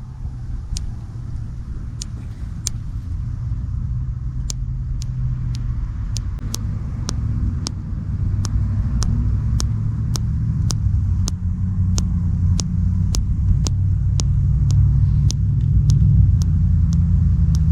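Thumb joint popping over and over, a series of sharp clicks, irregular at first and about two a second later on. Under it is a steady low rumble.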